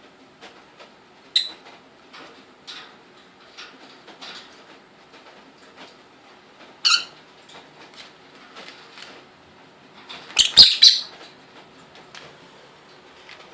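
A lovebird nibbling and shredding paper with its beak, heard as many small crisp ticks and crunches. It gives a short sharp chirp about a second and a half in and another about seven seconds in, then a louder flurry near eleven seconds.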